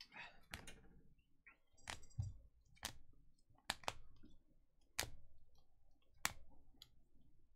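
Rigid plastic top-loader card holders clicking together as sleeved trading cards are handled and laid on a pile one by one: faint, sharp clicks about once a second.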